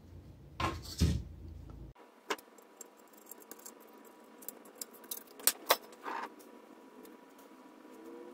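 A GM instrument cluster circuit board being turned over and handled, with a couple of loud knocks and rattles about a second in, then scattered light clicks and taps of small tools against the board, the sharpest a quick pair past the middle.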